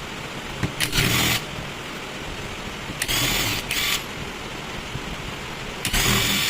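Small electric motor run in four short bursts of about half a second each, two of them back to back near the middle.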